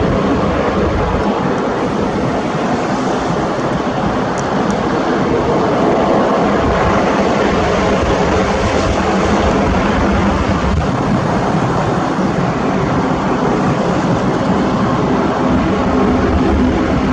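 Aircraft engines running with a loud, steady drone and a constant low hum.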